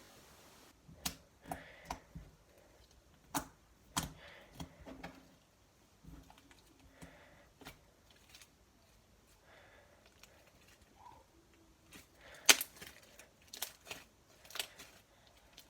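Slime being squeezed and poked by hand, making irregular sharp clicks and pops, the loudest about twelve and a half seconds in.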